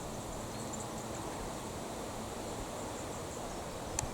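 Hot, dry wind blowing through trees, a steady rustling hiss, with one sharp click near the end.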